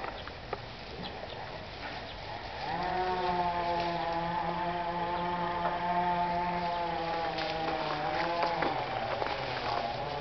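An engine droning steadily at a near-constant pitch from about three seconds in, its note shifting slightly near the end. Under it are faint snaps and rustles from raspberry canes as dogs feed in them.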